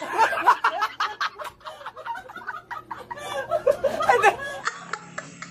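A man laughing hard: a run of loud, high-pitched laughs that breaks off about four and a half seconds in.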